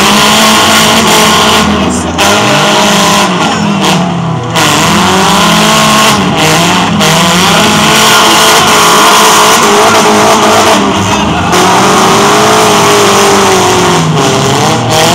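Several demolition-derby cars' engines revving up and down at once, their pitches rising, falling and crossing as the cars drive and ram each other on the dirt arena.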